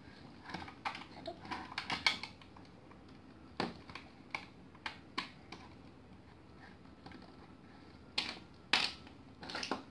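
Irregular clicks and knocks of plastic toy parts being handled on a tabletop: the pieces of a Play-Doh ice cream cart toy and small tubs tapping and snapping together, scattered through the first five seconds, then a short lull and a few louder knocks near the end.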